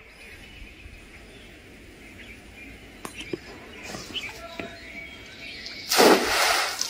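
A weighted cast net hits the pond surface, a short loud splash just under a second long, about six seconds in. Before it there is only quiet outdoor ambience with a few faint bird chirps.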